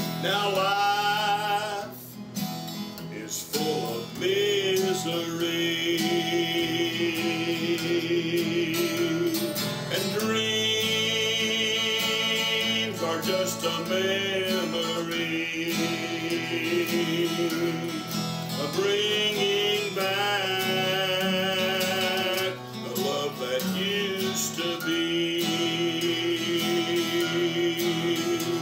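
Men singing to an acoustic guitar, a country-style song with long held notes sung with vibrato over the guitar accompaniment.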